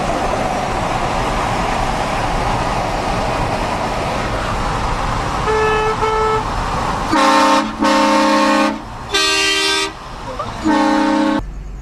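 Steady road noise, then two short, fainter beeps, then about seven seconds in, four loud blasts of a vehicle-mounted multi-tone train horn sounding a chord, the second blast the longest.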